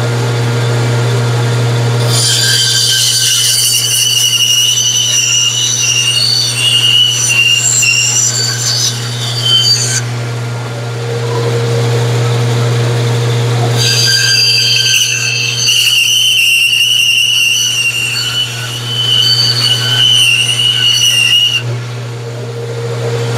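Benchtop band saw and its dust collection running with a steady low hum, while the blade cuts through a wooden board twice: each cut is a high, squealing whine lasting about eight seconds. The hum stops right at the end.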